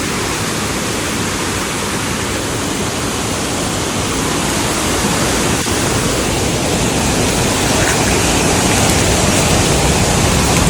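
Small waterfall: a steady rush of falling water that grows gradually louder.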